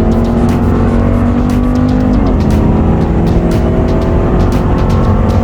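Race car engine running hard at high revs, its pitch dropping sharply at a gear shift a little over two seconds in.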